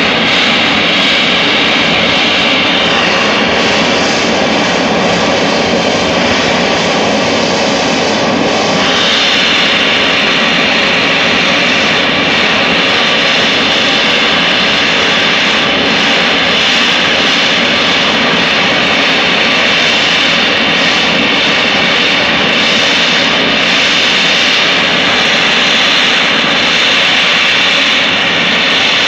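Gas well blowout: natural gas jetting uncontrolled from the well in a loud, steady rush of jet-like noise, its hiss turning brighter about nine seconds in.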